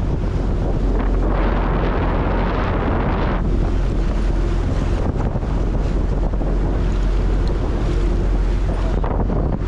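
Dive boat under way: wind buffets the microphone over the rushing wake along the hull, with a steady low engine drone underneath.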